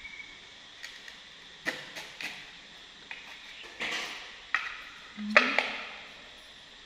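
A kitchen knife slicing raw potato into strips on a plate: a series of irregular sharp clicks and taps as the blade meets the plate, loudest about five seconds in.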